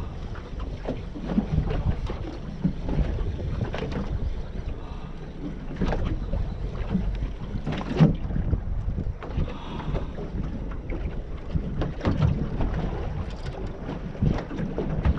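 Wind buffeting the microphone over a low rumble, with water slapping against the hull of a small inflatable boat and scattered short knocks, the loudest about eight seconds in.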